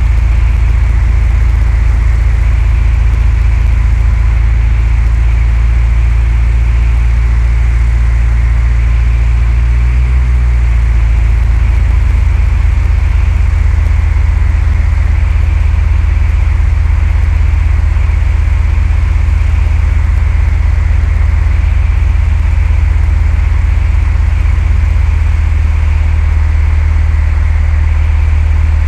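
Cessna 172's four-cylinder piston engine and propeller running steadily, with a brief change in engine pitch about ten seconds in.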